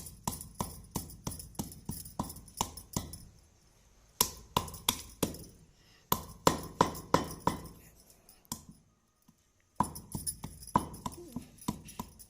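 A stone batta pounding dry ginger, ajwain and whole turmeric on a sil grinding stone: sharp stone-on-stone knocks about three a second, in four runs with short pauses between them.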